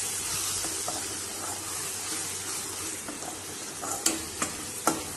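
Thick tomato-onion gravy sizzling in a stainless steel pot as a steel ladle stirs it, with a few sharp clinks of the ladle against the pot near the end.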